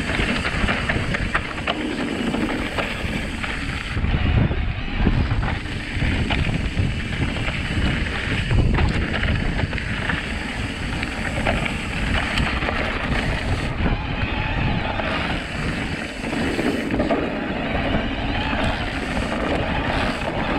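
Wind rushing over the microphone and mountain-bike tyres rumbling over a rough trail, with frequent small knocks and rattles from the bike.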